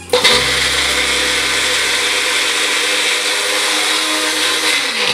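Magic Bullet blender motor whizzing garlic and ginger with its flat blade fitted. It starts suddenly, runs steadily for about five seconds, then winds down near the end.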